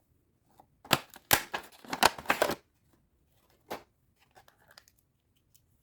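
Packaging being handled and torn open: a dense run of sharp crinkling tears about a second in, one more shortly after the middle, then a few faint clicks.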